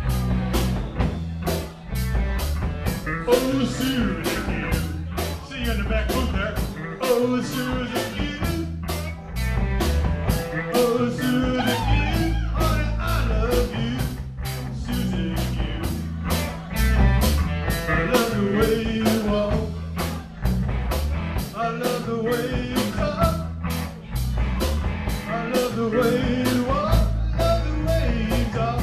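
Live rock band playing: electric guitar, electric bass and drum kit, with a steady beat of cymbal strokes about twice a second.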